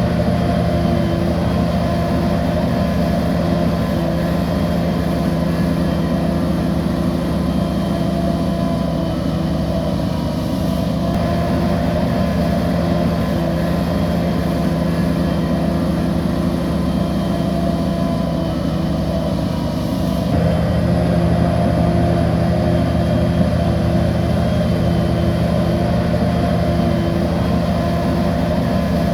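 Bulldozer's diesel engine running steadily, its sound shifting abruptly to slightly louder about two-thirds of the way through.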